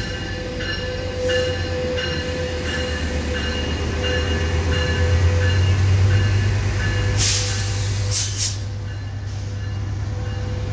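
Metrolink EMD F125 diesel-electric locomotive pulling into the station, its engine drone growing louder as it comes alongside. Its bell rings steadily through the first half, and there are two short hisses of air around the middle.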